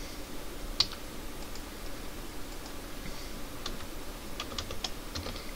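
Computer keyboard and mouse clicking: one sharp click about a second in, then a few scattered clicks, then quick runs of keystrokes in the last second and a half.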